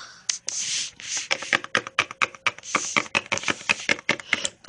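Rapid, irregular tapping and clicking, mixed with a few breathy hissing bursts.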